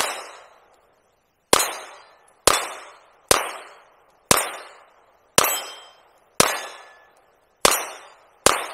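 PSA Dagger 9mm pistol fired at a slow, steady pace: nine shots about a second apart, each trailing off in a short echo.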